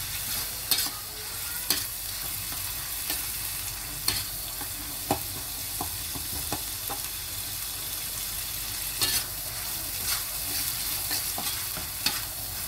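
Spatula stirring and scraping chilli sambal with stink beans in a wok as it sizzles over the flame: a steady sizzling hiss with sharp scrapes of the spatula against the wok at irregular moments.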